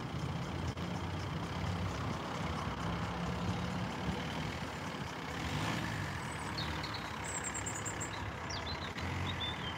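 Steady low engine hum of a motor vehicle idling, over street background noise, with a few faint high chirps in the second half.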